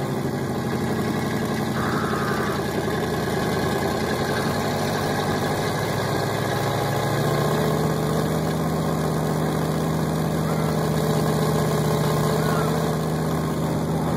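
Vehicle engine running steadily at low speed, its low hum growing a little stronger about seven seconds in.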